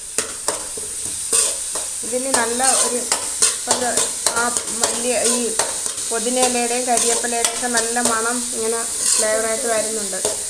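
A steel spoon stirring and scraping chopped onions, curry leaves and green chillies as they fry in oil in a metal pan. The oil sizzles steadily, the spoon clicks against the pan, and its scraping across the pan bottom gives off squeaky, wavering tones.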